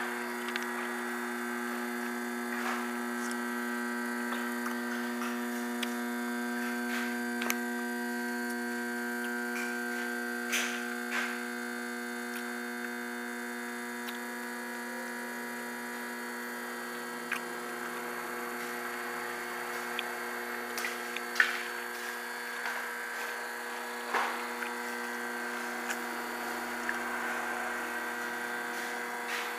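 A steady electrical-sounding hum, even and unchanging, with a buzzy stack of overtones, and scattered light clicks and taps over it.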